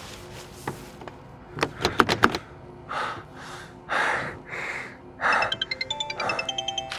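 Tense horror film score: a cluster of sharp hits about two seconds in, then several whooshing swells, then a fast ticking pulse of short high notes near the end.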